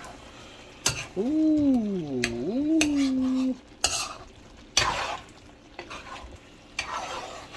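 Chicken frying in a kadhai, sizzling while a metal ladle stirs it, with several sharp knocks of the ladle against the pan. About a second in, a voice hums a drawn-out note that slides down and back up for a couple of seconds.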